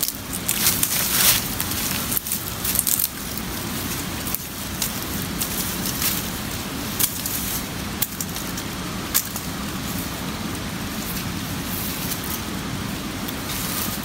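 Bamboo being hacked with a survival knife: a cluster of sharp cracks and splintering in the first three seconds, then a few isolated knocks over a steady hiss.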